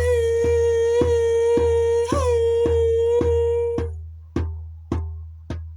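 Vocal toning: a voice holds one long note, with a brief upward lift about two seconds in, over a steady drumbeat of about two deep strikes a second. The voice stops about four seconds in, and the drum keeps beating alone.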